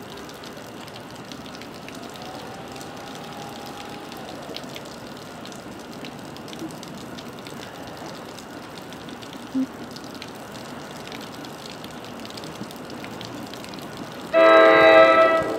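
Horn of an approaching NJ Transit commuter train sounds one loud chord-like blast about a second before the end, over faint steady outdoor background noise.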